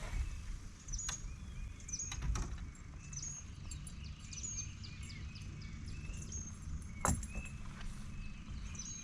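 Birds chirping with short, high, repeated notes over a low steady rumble, with a few sharp knocks, the clearest about seven seconds in.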